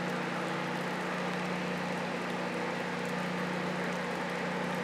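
Portable generator running steadily: a constant low engine hum under an even hiss.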